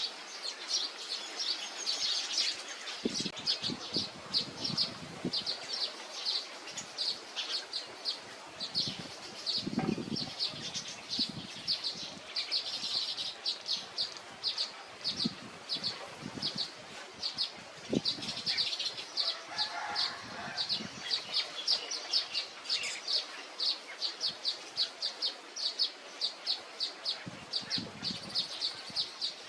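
Weaver birds chirping in a steady run of short, high chirps, two to three a second, with a few soft low thumps now and then.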